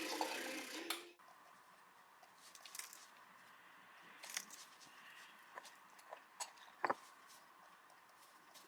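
A louder sound with steady tones cuts off suddenly about a second in. After it come a few faint, scattered clicks and taps.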